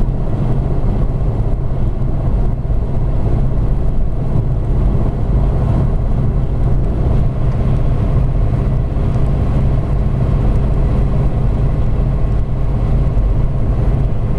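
Steady low drone of a car cruising at highway speed, heard inside the cabin: engine, tyre and wind noise with no distinct events.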